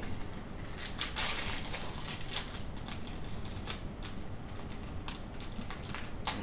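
Foil Pokémon booster pack being torn open and crinkled by hand: a run of sharp crackles and rips, loudest about a second in.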